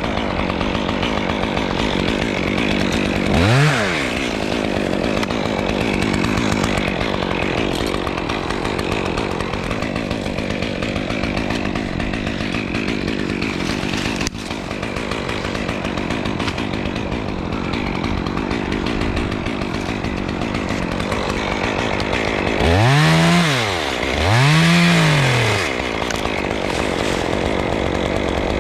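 Chainsaw running, revved up and straight back down once a few seconds in and twice in quick succession near the end, running steadily at a lower pitch in between.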